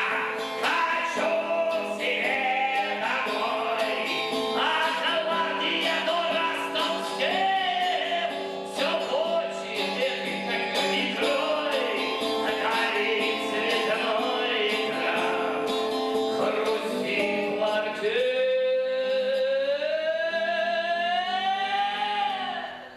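Man singing a song to strummed guitar accompaniment. Near the end he holds one long note that slowly rises and then falls away.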